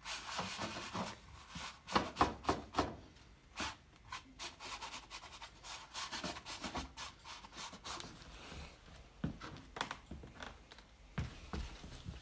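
Crumpled toilet paper dabbed and rubbed against a painted canvas in a series of short, irregular scratchy strokes, the loudest cluster about two seconds in.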